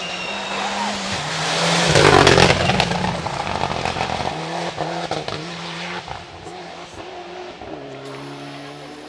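Rally car passing close at speed, loudest about two seconds in, then pulling away through several upshifts as its engine note fades.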